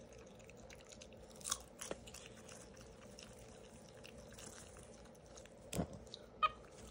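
Popcorn being eaten and handled: faint crunching and chewing, with a few short, sharp crackles as a hand rummages through the popcorn in a paper bucket.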